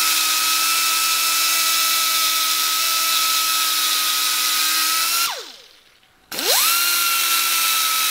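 High-speed die grinder porting the oil pump inlet passage of an engine block: a steady high whine that spins down about five seconds in, stops for about a second, then spins back up to speed.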